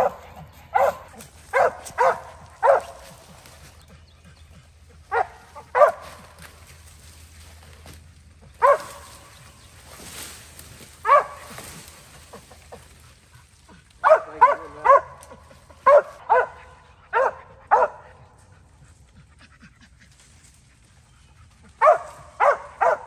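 A squirrel dog barking at the foot of a tree, in short sharp barks that come singly and in quick runs of three to five. This is a tree bark, the sign that the dog has a squirrel treed. Brush rustles in the middle as vines in the tree are pulled and shaken.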